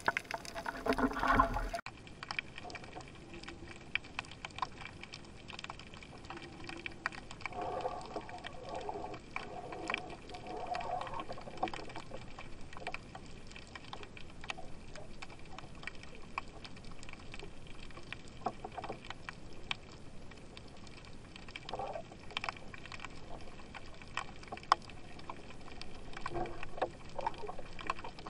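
Underwater ambience picked up by a camera in its housing: a low wash of water noise dotted with many scattered sharp clicks and crackles, with a louder stretch of water sound in the first couple of seconds and a few brief swells later.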